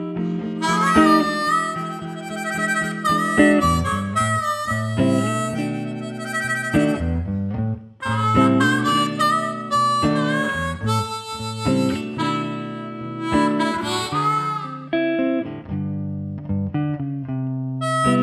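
Harmonica playing a lead line over archtop hollow-body guitar chords, with a brief break in the line about eight seconds in.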